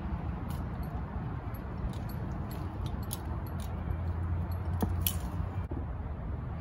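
Steady low outdoor rumble with scattered light clicks and clinks, and a brief falling squeak near the end.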